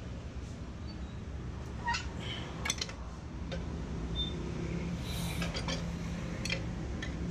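Scattered sharp clicks and knocks of hard plastic and metal parts handled on a copier while its finisher is being removed, a cluster about two seconds in and another about five to six seconds in, over a steady low hum. A couple of short high chirps are also heard.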